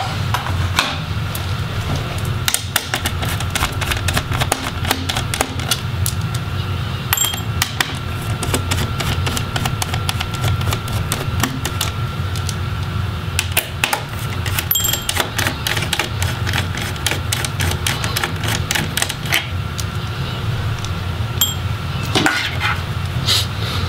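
Small Phillips screwdriver clicking and ticking as it turns out the screws holding a laptop's plastic bottom cover, over a steady low hum.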